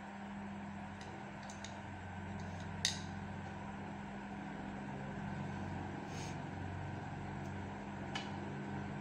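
Steady low mechanical hum with a few small, sharp metal clicks and clinks as parts around the feed dog and needle plate of an industrial overlock sewing machine are handled; the sharpest click is about three seconds in and another comes near the end.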